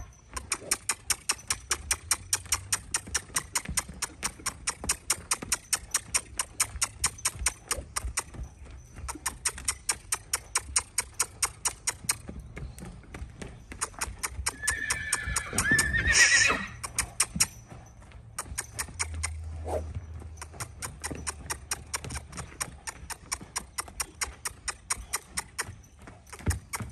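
Andalusian colt's hooves beating in a steady trot rhythm on the sand, about three a second, with a few short breaks. About two-thirds of the way through the colt gives one loud whinny.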